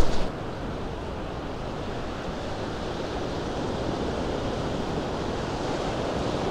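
Ocean surf breaking and washing around the shallows in a steady rush, with wind buffeting the microphone. A short sharp click right at the start.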